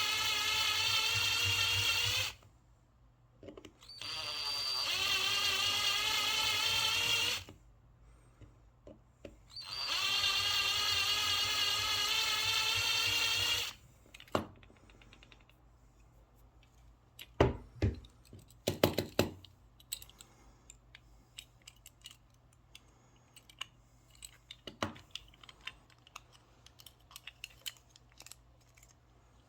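Small electric drill running in three bursts of a few seconds each, with a wavering whine. Afterwards come scattered light clicks and a few louder knocks of small parts being handled.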